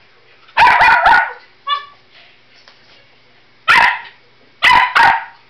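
West Highland white terrier barking: three quick barks in a row, a short yip, then one bark and two more in quick succession near the end.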